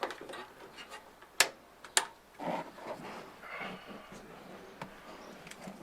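Hard parts knocking together as an ECU and its mounting bracket are test-fitted: two sharp clicks about half a second apart, among lighter handling taps.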